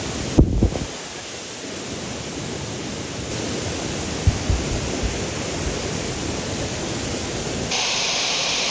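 Waterfall in flash flood, a steady rush of water. There are a few low thumps about half a second in and again about four seconds in, and a brighter hiss near the end.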